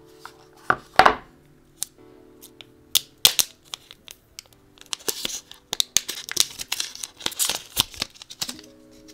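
Packaging being torn open and crinkled by hand in short, irregular scratchy strokes, loudest about a second in and busiest in the second half, over soft background music.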